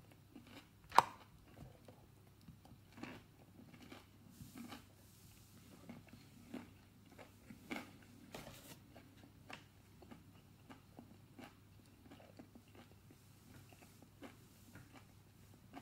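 A person chewing a crunchy battered mini pork sausage with the mouth close to the microphone: irregular crunches of the batter, the sharpest about a second in.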